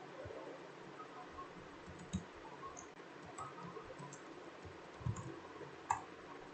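Computer keyboard typing and mouse clicks: scattered soft key clicks, with two sharper clicks about two seconds in and near the end.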